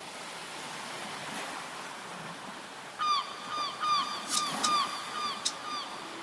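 Surf washing steadily; from about three seconds in, a run of short, repeated gull-like calls, a few a second, with a few sharp clicks among them.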